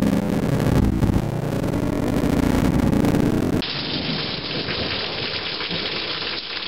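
Loud, deep rumble of thunder, which about three and a half seconds in gives way suddenly to a steady hiss of heavy rain.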